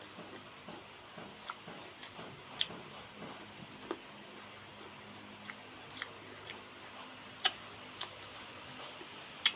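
Close-up chewing and crunching of green mango slices, with a few short sharp mouth clicks scattered through.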